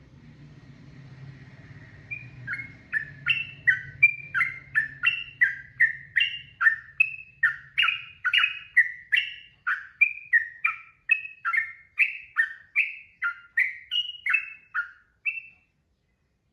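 Sooty-headed bulbul (trucukan) singing a long unbroken run of quick gliding whistled notes, about two a second, starting about two seconds in and stopping shortly before the end. A faint low hum sits under the first few seconds.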